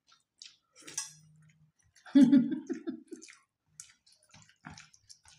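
Eating at the table: chewing and small clicks of hands and utensils on steel plates and bowls, with a sharp clink about a second in. About two seconds in, one short, loud vocal sound without words, a hum or laugh from one of the diners, is the loudest thing.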